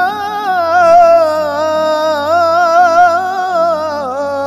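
A voice singing an Arabic devotional nasheed in praise of the Prophet Muhammad, drawing out one long ornamented melismatic line with a wavering pitch, over a low steady hum.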